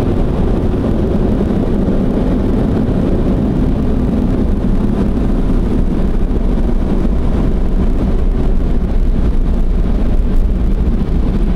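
Automatic car wash equipment running around the car, heard from inside the cabin as a steady, loud, low rushing noise.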